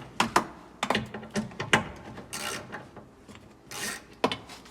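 Hand ratchet wrench clicking in irregular runs with metal tool scrapes and knocks as bolts are loosened.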